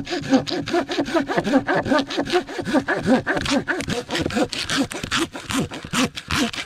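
Hand pruning saw cutting through a dead log in quick, steady back-and-forth strokes, about four a second, each stroke rasping up and down in pitch.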